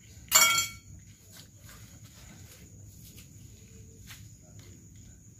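A steady high trill of night insects such as crickets, with a few faint clicks. About half a second in comes one short, sharp, high-pitched sound, the loudest thing heard.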